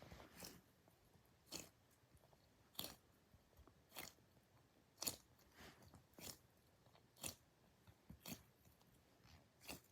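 A series of short, crisp crunching clicks, about one a second, against near silence.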